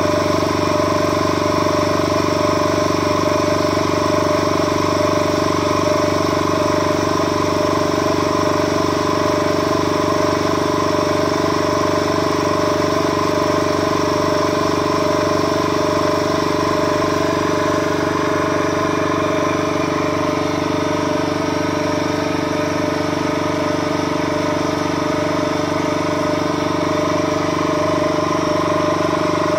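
Vacuum pump running steadily while it holds the chamber under vacuum: a constant, even motor hum made of several fixed tones.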